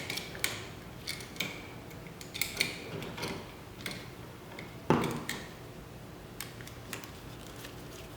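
Small irregular clicks and taps of hand tools and wire being worked at a light switch: needle-nose pliers bending a hook in the wire and setting it on the switch's terminal screw. A sharper click about five seconds in.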